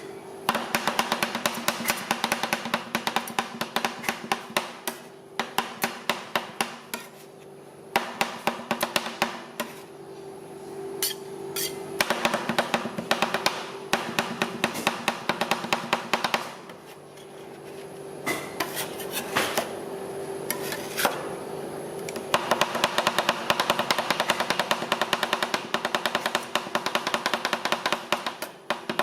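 Metal spatulas rapidly chopping and tapping on a rolled-ice-cream cold plate in fast clattering runs, with short pauses between them, over a steady hum.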